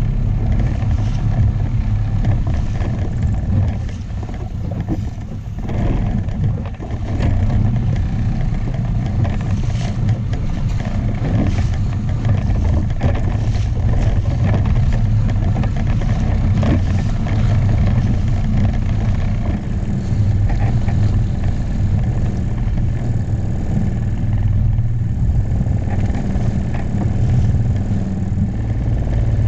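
A small boat's motor running steadily with a low hum, mixed with wind on the microphone and water rushing past the inflatable hull, with scattered knocks and splashes.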